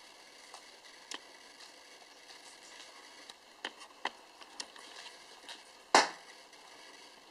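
Guinea pig chewing crisp lettuce: a string of short, sharp crunching clicks, with one much louder sharp crack about six seconds in.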